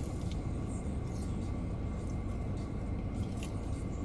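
Steady low rumble inside a car cabin, with a few faint, scattered clicks.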